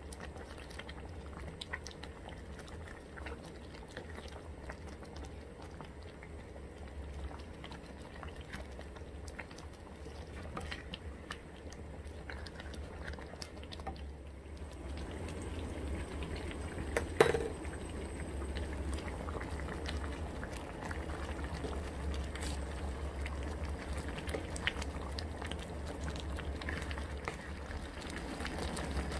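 A pot of liquid boiling on the stove, bubbling and crackling with many small ticks over a low steady hum, getting louder about halfway through. A single sharp knock about 17 seconds in.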